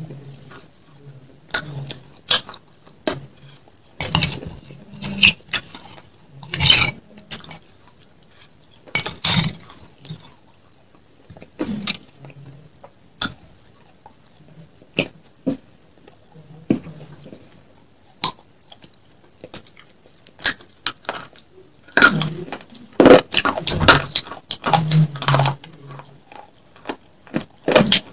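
A metal spoon clinking and scraping inside a drinking glass, with close-miked eating noises: sharp clicks spread through, and a denser, louder run of clicks and crunches in the last third.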